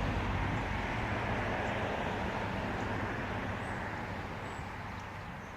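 A passing motor vehicle's tyre and road noise slowly fading away.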